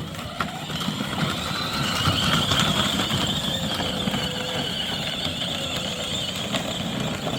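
A 24V kids' electric ride-on Jeep, with four drive motors, driving off: a steady high motor whine over the rumble of its wheels, getting a little louder about a second in as it picks up speed.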